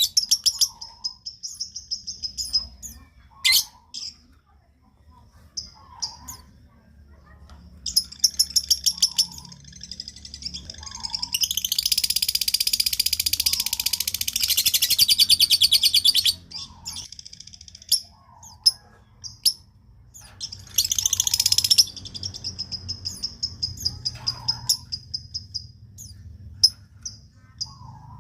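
Lovebird song used as a lure: scattered sharp, high chirps and short rapid trills, with one long fast chattering trill of about five seconds around the middle and a shorter one later on.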